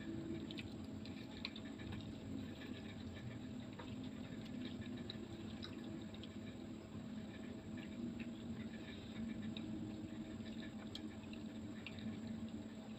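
Close-miked eating sounds: wet chewing and mouth smacking on a mouthful of stir-fried noodles, with small irregular clicks of a fork against a ceramic bowl, over a steady low hum.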